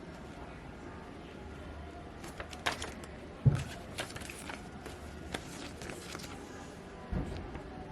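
Packaging handled while a small speaker is lifted out of its box: scattered light clicks and rustles, with a dull thump about three and a half seconds in and a softer one near the end.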